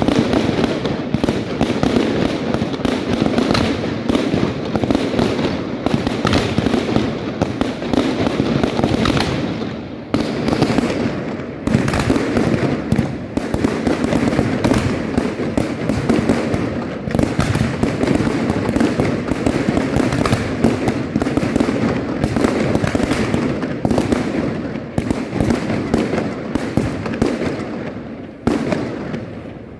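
Fireworks display: a dense, continuous barrage of bangs and crackling firecracker reports, thinning briefly near the end.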